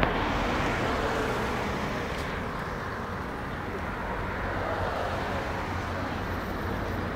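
Steady road traffic noise from cars passing on a nearby dual carriageway.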